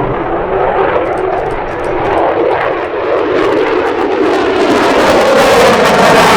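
Beech 18 twin-engine airplane in flight, its two radial piston engines running as it closes in, growing louder and brighter toward the end.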